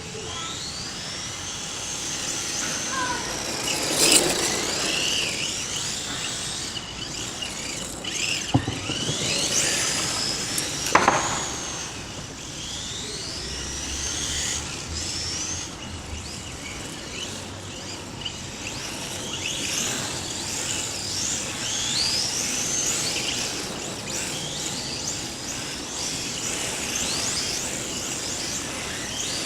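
Electric motor of a 1/10-scale RC drift car whining up and down in pitch again and again as the car accelerates and lets off through its drifts. A few sharp knocks come through, about 4, 8 and 11 seconds in.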